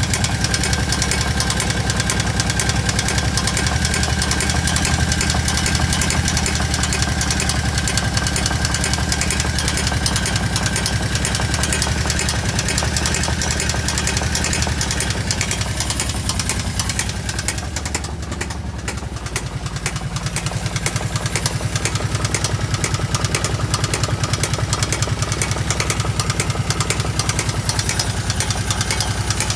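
Kawasaki KVF750 Brute Force ATV's V-twin engine idling with a steady, loud knocking. The owner places the knock at the rear cylinder and has ruled out the valve tappets. The engine note dips and changes briefly a little past the middle, then carries on as before.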